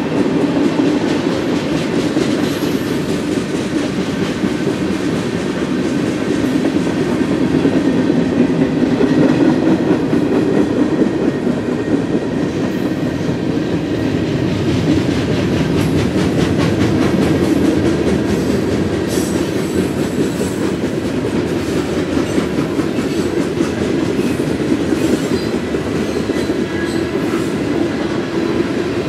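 Freight train of tank cars, gondolas and covered hoppers rolling past at speed: a steady rumble of steel wheels on rail, with a quick run of clicks as the wheels pass over rail joints.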